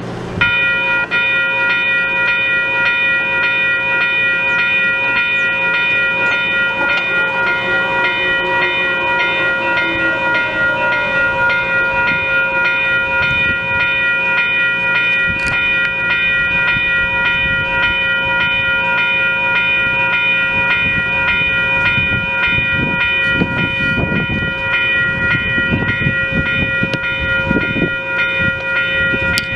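Electronic railroad grade-crossing bell starting abruptly and ringing on steadily at one high pitch: the crossing has activated for an approaching train. A low rumble joins in during the last several seconds.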